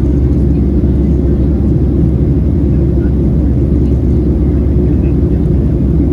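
Steady low drone of a Boeing 737-700's CFM56-7B engines and airflow, heard from inside the cabin.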